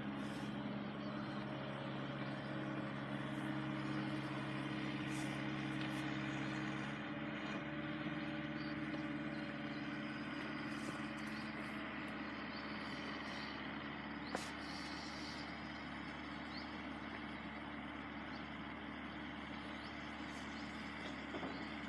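Diesel passenger train running at the crossing: a low engine drone that dies away about ten seconds in, over a steady rumble.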